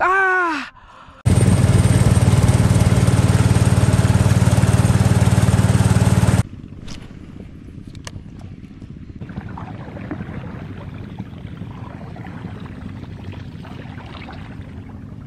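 Small boat's engine running loudly and steadily for about five seconds, cutting off suddenly. A quieter, even background noise follows, with a couple of faint clicks.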